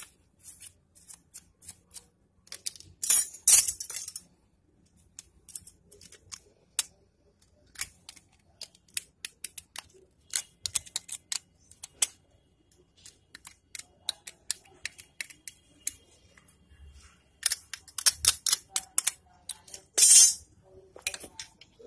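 A brush scrubbing the tip of a motorcycle spark plug to clean it: dry, scratchy strokes with scattered small clicks. The strokes come in short runs, loudest about three seconds in and again near the end.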